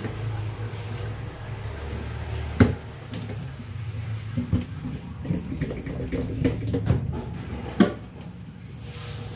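Plastic cups, bottles and dishes knocking and clattering against a stainless steel kitchen sink as they are washed by hand. There are two sharp knocks, one a little over two seconds in and one near the end, over a low steady hum.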